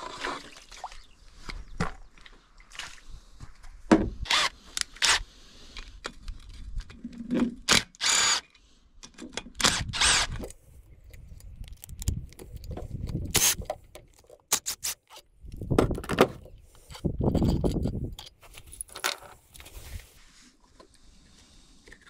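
Hand tools and metal parts of an outboard's lower-unit water pump being handled while it is taken apart to reach the impeller: irregular sharp clicks and clinks, with several longer scraping rubs in the second half.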